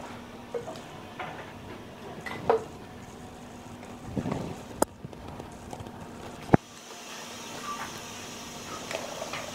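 Faint handling of a plastic pre-workout tub and scoop: scattered light rustles and clicks, with two sharp clicks around the middle.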